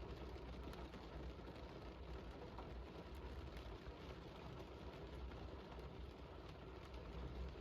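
Steady rain falling: a faint, even hiss with a few scattered drop ticks.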